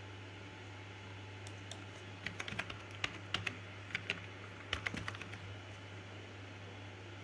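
Typing on a computer keyboard: a quick run of keystrokes from about two seconds in to about five and a half seconds, over a low steady hum.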